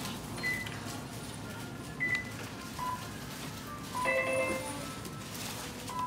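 Supermarket checkout ambience: short electronic beeps at a couple of pitches from the registers, scattered about once a second, with a brief chime of several tones about four seconds in, over a steady low store hum.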